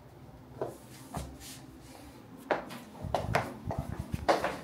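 Handling sounds in a small room: a few light clicks and knocks, then a busier run of knocks, bumps and rubbing in the second half.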